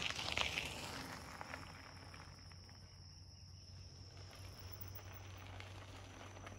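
Faint, steady high-pitched insect trill from the woods over low background noise, fading out near the end.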